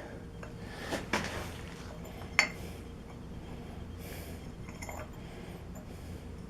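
A few light clinks of a tea light candle being set into a forged iron candle holder, the sharpest about two and a half seconds in, over a faint steady low hum.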